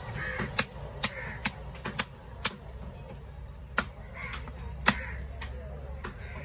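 Long fish-cutting knife chopping through fish head pieces on a wooden log block: a series of sharp knocks at irregular intervals. Crows caw a few times between the chops.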